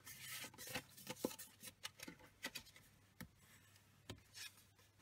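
Faint rustling and rubbing of card stock being folded and pressed flat by hand, with scattered light clicks.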